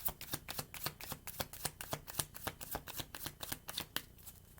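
Deck of tarot cards being shuffled by hand: a rapid run of crisp card snaps, about five or six a second, that stops near the end.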